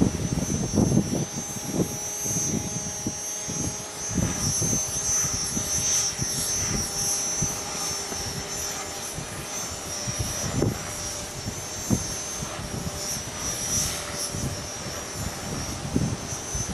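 Mikado Logo 400 electric RC helicopter flying, with a steady high whine from its motor and drive and a steady rotor hum. Strong wind gusts buffet the microphone with irregular low rumbles.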